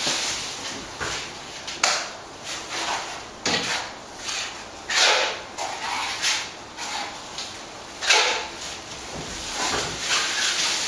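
Steel plastering trowel scraping lime render out of a plastic tub and spreading it on a wall: irregular scraping strokes, with a few sharp knocks.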